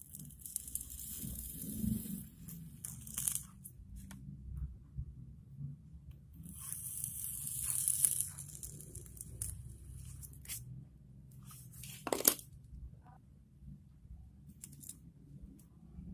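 Hot soldering iron tip sizzling and crackling as it is rubbed into a block of pine rosin to clean it, in two spells of a few seconds each, with a sharp click about twelve seconds in.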